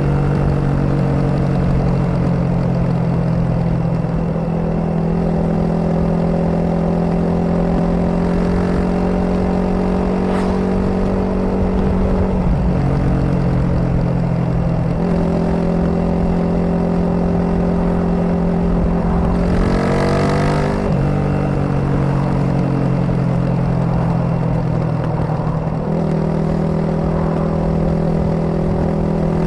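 Suzuki DR250S single-cylinder four-stroke engine running through a Dominator R aftermarket exhaust while riding. It holds steady revs, with the note stepping up and down several times as the throttle and gears change, and a quick rising rev about twenty seconds in.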